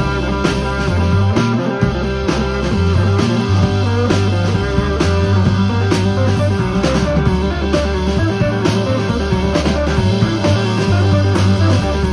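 Live rock band playing an instrumental passage through a PA: electric guitar over a drum kit, with regular drum hits and a deep bass line that changes note every second or so.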